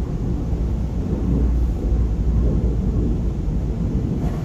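High-pressure water jets of an automatic touchless car wash spraying a car's body: a steady, low rush of noise.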